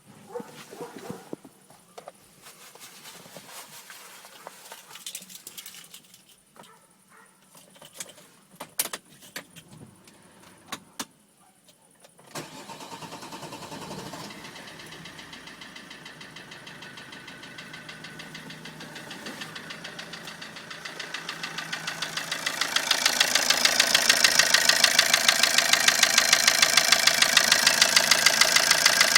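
Opel Combo 1.3 CDTI four-cylinder turbodiesel starting about twelve seconds in, after some scattered clicks, then idling with a regular, rapid knock. The knock grows louder about ten seconds after the start.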